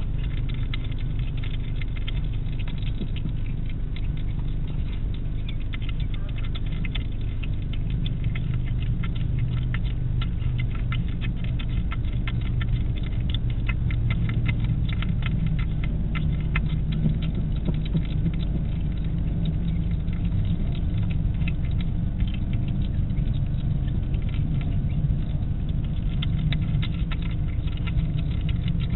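European hedgehog eating from a dish: a rapid, irregular patter of small clicks from its chewing, over a steady low hum.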